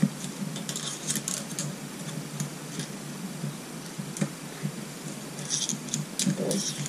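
Light metallic clicks and clinks of tools and engine parts being handled on a motorcycle cylinder head during camshaft installation, in small clusters about a second in and again near the end.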